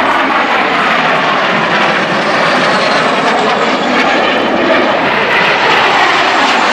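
Jet engines of a pair of early jet fighters, an F-86 Sabre and a MiG-15, flying overhead together: a loud, steady jet noise.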